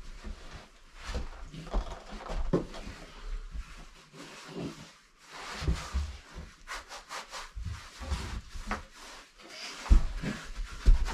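Paintbrush strokes scrubbing stain onto rough wooden boards, irregular and scratchy, with a quick run of short strokes about two-thirds of the way in and a few low thumps on the wood.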